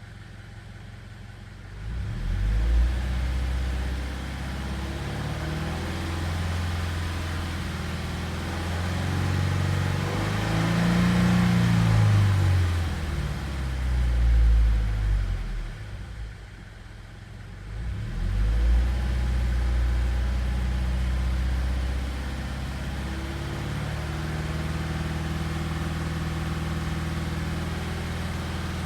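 Subaru/Toyota FA20 2.0-litre flat-four engine starting with a brief flare and running. It is revved once and falls back, is shut off, then starts again and idles. The owner presents it as making a knocking noise.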